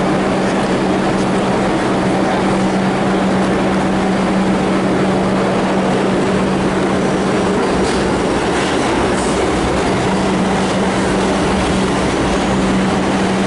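Steady, loud rumble of a moving vehicle, with a constant low hum.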